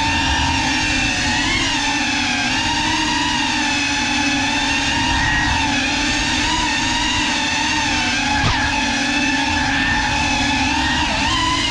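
Brushless motors and propellers of a GEPRC Cinelog 35 cinewhoop drone whining in flight, the pitch wavering up and down with the throttle. A brief tick about eight and a half seconds in.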